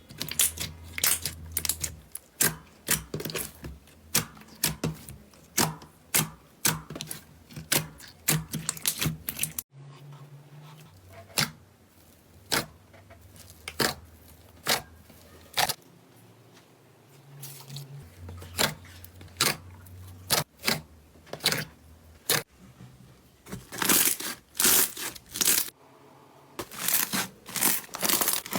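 Slime being pressed and poked by hand, giving a run of sharp, wet clicks and pops several times a second, with brief changes in texture where one clip gives way to the next.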